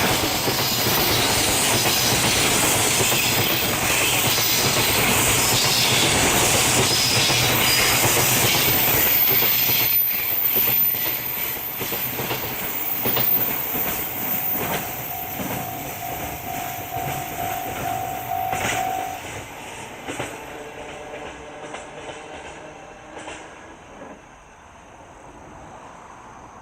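Freight train rolling past at speed, its wheels clattering over the rail joints. It is loud for about ten seconds, then fades away as the last wagons pass and recede, with a steady tone for a few seconds midway through the fade.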